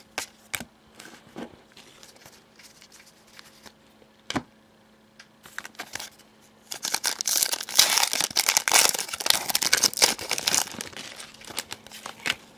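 Trading cards handled with a few light clicks and taps, then a card pack's foil wrapper crinkling and tearing for about four seconds, starting about seven seconds in.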